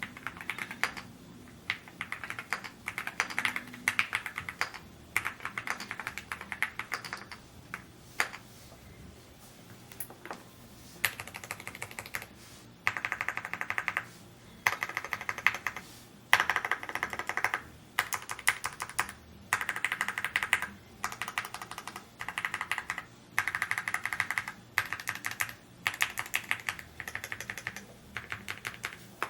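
Typing on a Rainy75 mechanical keyboard: quick runs of keystrokes in bursts of about a second, each run a word or two, with short gaps between. Typing pauses for a few seconds about a third of the way in, then resumes.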